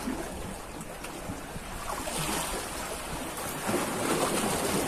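Sea waves washing against breakwater boulders, a steady rushing that swells about two seconds in and again near the end.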